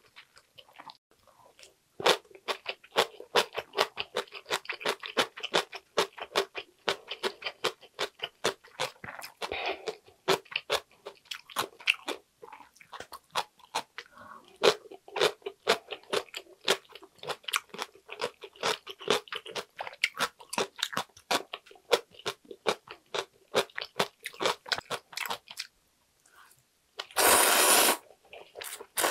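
Close-miked crunching and chewing of cucumber kimchi: many quick, crisp crunches over about twenty seconds. Near the end come two loud slurps of ramyun noodles.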